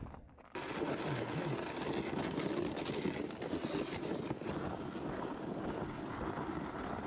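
A vehicle's engine running steadily as it is ridden, a continuous noisy rush that starts suddenly about half a second in and cuts off abruptly at the very end.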